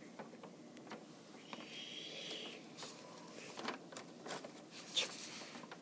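A handful of faint small clicks and light rustles, spread irregularly, with a soft hiss about two seconds in.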